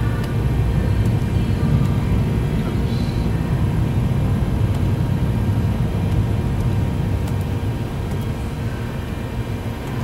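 Fanuc Alpha T10A drill-tap machining center running under power: a steady low rumble with faint steady hum tones above it, easing slightly near the end.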